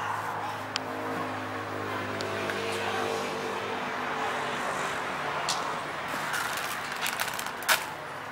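A motor vehicle's engine running steadily in the background, with a few sharp clicks, the loudest near the end.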